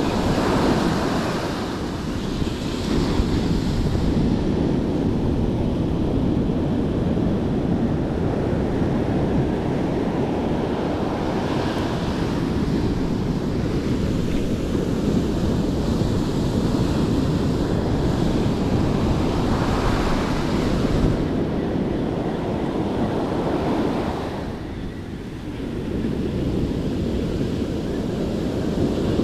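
Ocean surf washing onto the beach, with wind buffeting the microphone. The noise is steady and swells now and then as waves break.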